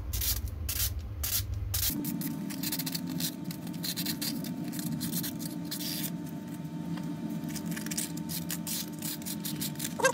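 Sandpaper rubbed over a 3D-printed plastic part in quick, repeated scratchy strokes, smoothing away printing lines on a sliding surface.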